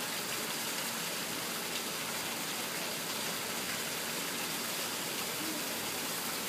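Water spilling steadily over a rock edge into a pool, an even rushing hiss that does not change.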